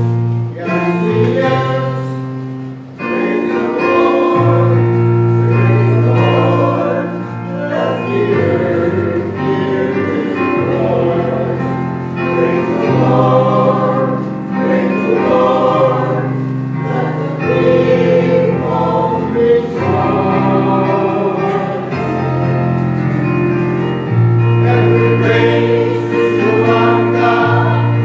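A group of voices singing a sacred song together, over held low accompanying notes.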